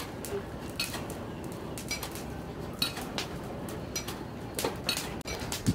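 Sharp metallic clinks at irregular intervals, roughly one a second, each with a brief ring, over a steady low background noise.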